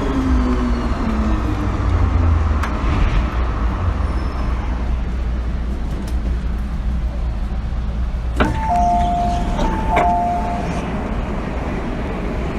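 MTR M-Train electric multiple unit, heard from inside the car: the traction motor whine falls in pitch and dies away as the train slows, leaving a steady low rumble. About eight seconds in there is a sharp clunk, then a two-note electronic chime sounds twice.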